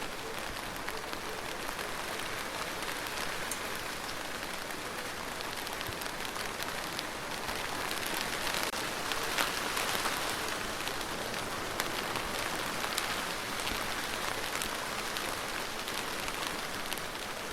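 Steady rain falling on a surface, a dense hiss dotted with sharp ticks of individual drops, growing a little heavier around the middle.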